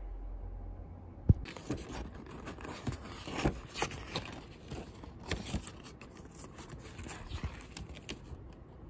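A sharp knock about a second in, then the rustling and crinkling of paper desk-calendar pages being handled, with scattered clicks and taps.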